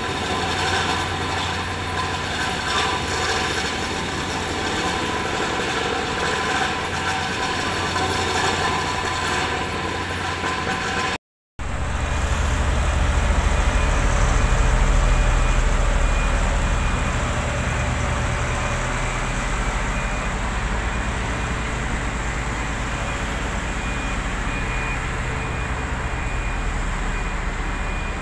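Steady machinery noise with several held tones over the raking of fresh asphalt, then, after a sudden cut, the diesel engine of a tandem double-drum asphalt roller running with a deep steady rumble that shifts lower about two-thirds of the way through.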